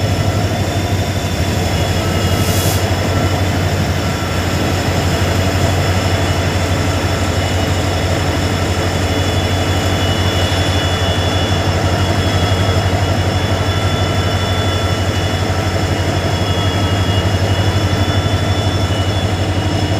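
Train locomotive running, heard from inside the driver's cab: a steady low engine hum with faint, even whining tones above it.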